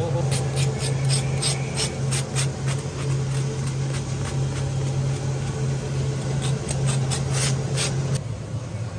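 A steady low mechanical hum with a run of short rasping scrapes and clicks over it. The hum drops away near the end.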